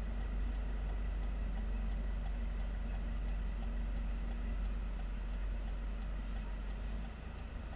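Steady low hum of a car idling, heard from inside the cabin while stopped in traffic. Near the end the low rumble drops and turns uneven.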